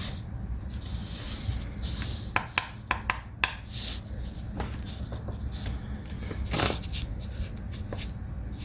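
Light handling noises at a table: a few small clicks and short rustling scrapes as paper scratch-off tickets and a coin are handled, the clicks bunched a couple of seconds in and a brief rasp near two-thirds through.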